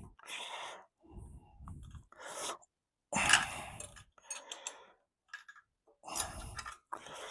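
Metal-on-metal scraping and clicking of a spanner working a cam follower into place under the camshaft of a Mercedes M110 engine, in short bursts with a sharp click about three seconds in.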